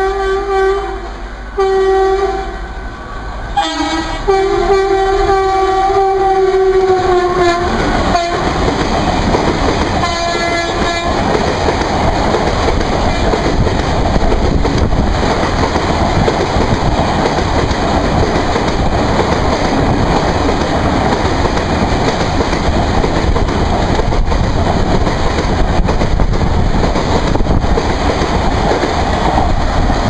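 WAP4 electric locomotive's horn sounding: two short blasts, then a long blast whose pitch sags just before it stops, and a fainter short blast a couple of seconds later. After that, the coaches of the accelerating 22-coach express rumble and clatter over the rail joints as they run past.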